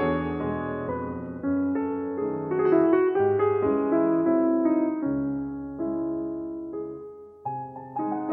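Solo piano music, notes struck one after another and left to fade; no firework bangs are heard.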